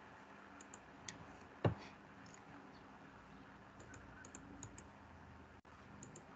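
Faint, scattered clicking and tapping at a computer, with one louder knock about a second and a half in and a quick run of clicks around four seconds in.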